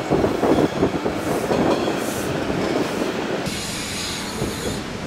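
Narrow-gauge Bernese Oberland Railway train running, heard from an open window: wheels rolling and knocking over the rails, with a steady rushing noise. A higher-pitched hiss joins for about a second past the middle, while the running noise fades slowly.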